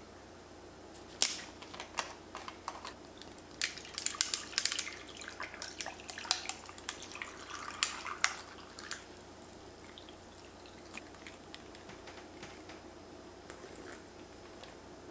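A plastic bottle cap twisted open with a sharp click about a second in, then green tea poured over ice cubes in a glass, the ice clinking and crackling in a quick run of ticks through the middle.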